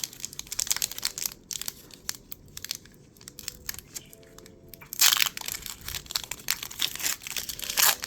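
Foil wrapper of a Pokémon trading-card booster pack crinkling and being torn open by hand, with the cards handled. It is quieter with scattered crackles in the middle, with loud bursts of crinkling about five seconds in and again near the end.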